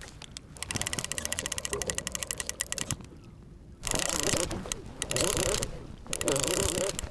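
A fishing reel clicking rapidly and evenly for a couple of seconds. After a short pause come two longer stretches of louder reel and handling noise as the line is worked.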